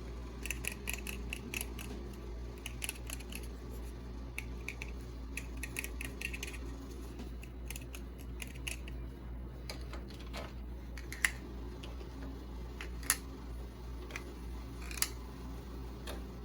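Small objects being handled: quick clusters of light clicks and taps for the first several seconds, then a few single sharper clicks spaced about two seconds apart near the end.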